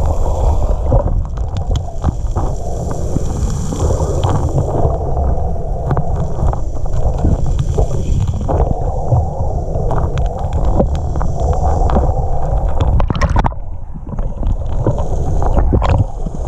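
Muffled underwater sound of lake water surging over a pebble bed, heard through a submerged camera's housing: a steady low rumbling churn with many scattered small clicks and ticks.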